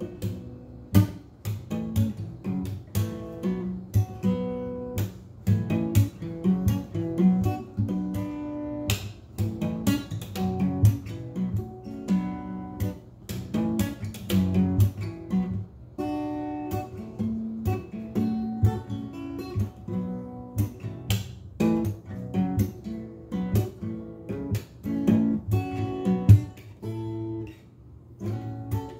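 Acoustic guitar with a capo played solo: a continuous run of picked notes and strummed chords.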